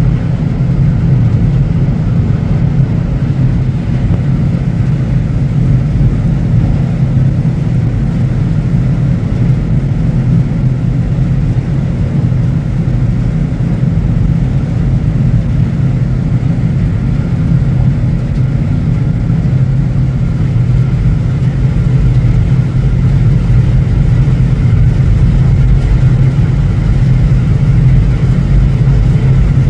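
Steady, loud low drone of a ship's engine, with faint higher hum tones over it.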